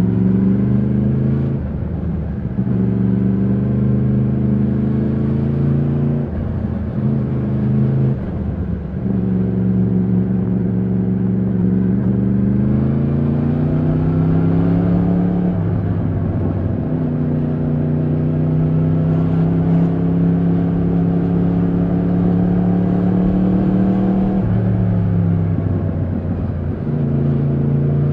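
Yamaha MT-10's crossplane inline-four engine running under way, its pitch climbing as the bike accelerates. The note breaks off for a moment about five times as the throttle is closed and reopened, then picks up again or holds steady at cruising revs.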